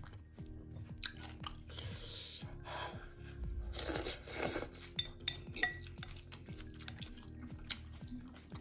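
A person eating noodles and pork hock close to the microphone: chewing and mouth noises, with two louder noisy stretches about two and four seconds in and a few sharp clinks of utensils against the bowl, over steady background music.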